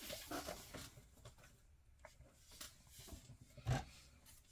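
Faint, scattered handling noises: small clicks and rustles as things are moved about on a desk, with one somewhat louder short knock a little before the end.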